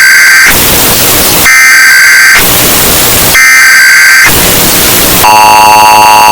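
Emergency Alert System-style alarm. Three screeching data-burst header tones of about a second each alternate with one-second bursts of static. About five seconds in, a harsh, buzzy, steady two-tone attention signal begins.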